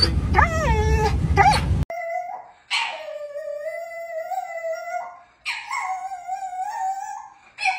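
French bulldog howling in long, drawn-out, steady cries, two full howls with a short break between them and a third starting at the end. Before that, about two seconds of low rumble with a few short rising-and-falling vocal sounds cut off abruptly.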